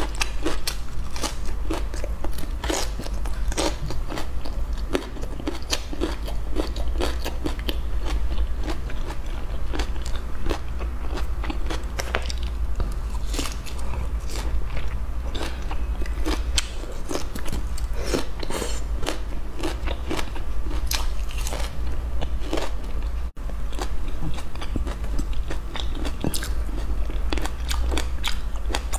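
Close-miked chewing and crunching of broccoli florets, many small crisp crackles and bites in an uneven run, over a low steady hum.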